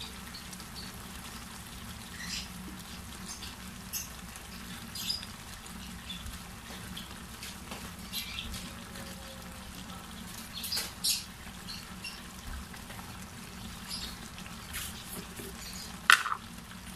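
Pork menudo in thick tomato sauce simmering in a frying pan, with scattered soft bubble pops every second or two over a steady low hum.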